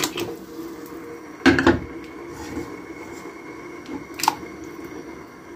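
Cookware being handled on a kitchen stove: a dull thud about one and a half seconds in and a sharper knock with a short metallic ring just after four seconds, over a steady faint hum.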